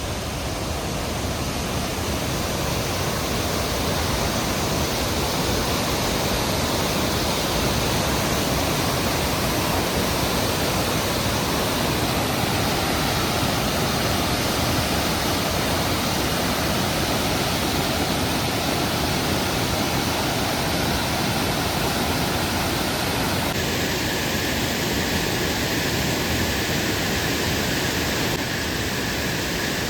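River water rushing steadily, a continuous even roar of flowing water. Its tone shifts slightly about three quarters of the way through.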